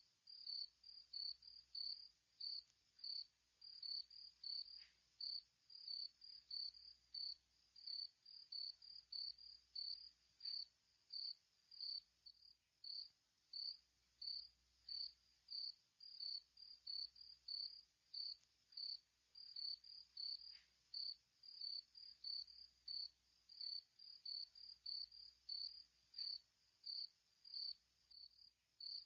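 Insect chirping: a steady run of short, high chirps, about two a second, with nothing else standing out.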